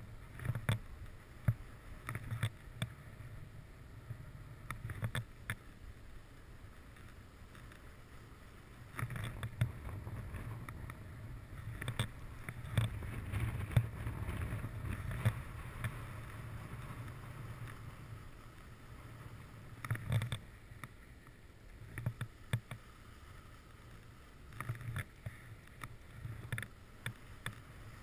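Skis sliding and scraping over snow, a steady hiss broken by many short knocks and clicks, louder for several seconds in the middle.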